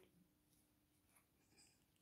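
Near silence: room tone with a faint steady hum and a few very faint light clicks.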